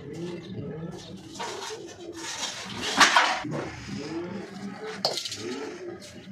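Pigeons cooing steadily, with bursts of hissing and rustling about halfway through, the loudest a sharp burst about three seconds in.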